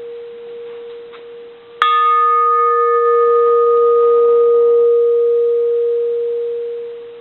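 Bronze Japanese Buddhist temple bell (circa 1910) struck once with a wooden striker about two seconds in, while still humming from an earlier strike. It rings with one steady low hum and several higher overtones; the overtones fade first, and the hum swells and then dies away near the end.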